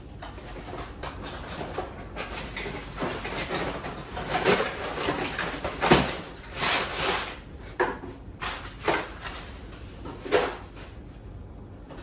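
Cardboard packaging being handled: the flaps and a cardboard insert of a carpet cleaner's shipping box pulled and lifted, with irregular rustling and scraping and a few sharp knocks, the loudest about six seconds in.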